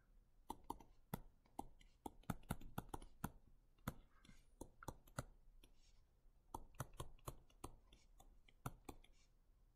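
Faint, irregular clicks and taps, several a second, of a stylus tip striking a touchscreen while equations are handwritten, with a little scratching of the pen between taps.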